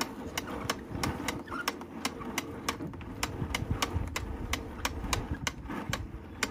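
Spring-loaded retractable hose reel paying out as the hose is pulled, its latch clicking about three times a second over the low rumble of the turning drum and sliding hose.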